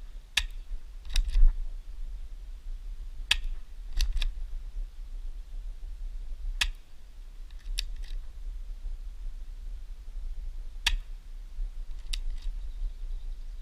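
Spring-powered Sig Sauer P226 airsoft pistol (ABS) fired and recocked again and again: a sharp snap of each shot, followed about a second later by a quick double click of the slide being racked, four times over. A low rumble of wind on the microphone runs underneath.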